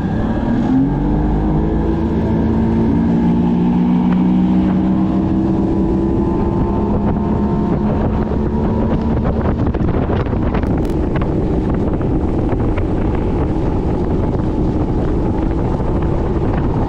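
Bass boat's outboard motor revving up in the first second, then running steadily at speed, with wind buffeting the microphone.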